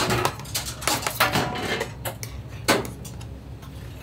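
Long-handled metal taiyaki irons and a batter ladle clattering as the irons are filled and shut, with one sharp metal clank about two and a half seconds in, over a steady low hum.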